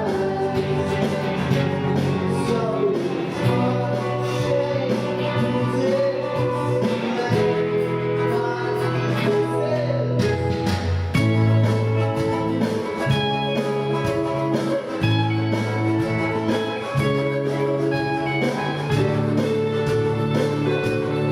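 A live band playing a song through the PA, with guitar and some singing over a steady bass and beat.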